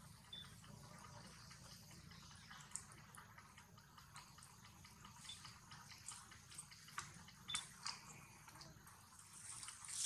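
Faint, scattered clicks and crackles of a baby long-tailed macaque picking through dry leaves and grass, over a low steady hum; the sound grows louder near the end.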